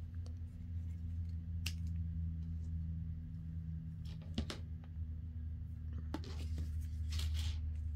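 Scissors and paper being handled on a cutting mat: a few light clicks and snips, then a soft rustle of paper near the end, over a steady low hum.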